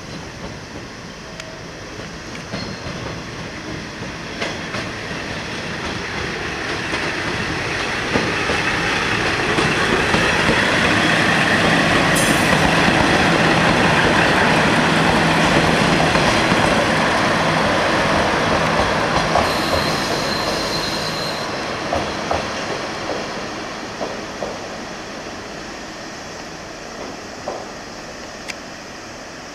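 Two-car KiHa 40 diesel railcar train passing, its engines running and wheels clattering over crossover points. The sound builds to a peak about halfway, with a brief high wheel squeal about two-thirds of the way through, then fades as the train moves away.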